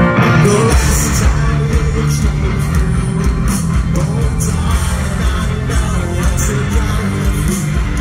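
Rock band playing live: electric guitars, drums with cymbal hits, and a male lead singer, heard loud from the crowd. The drums come in fully about a second in.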